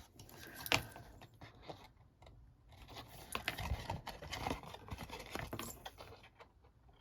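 Craft snips cutting through cardstock, a few crisp snips and scrapes with paper being handled, busiest in the middle of the stretch.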